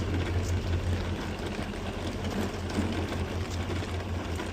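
A steady low mechanical hum, like an engine idling, with faint scattered ticks over it.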